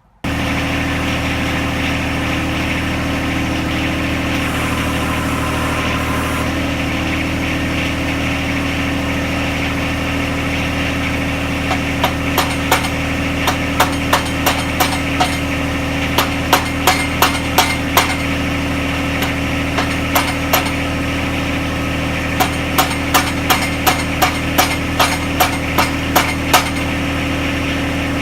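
John Deere 1025R compact tractor's three-cylinder diesel engine idling steadily. From about twelve seconds in, a series of sharp hammer blows on metal comes in bursts of roughly two a second, driving the tight-fitting backhoe connector parts into place.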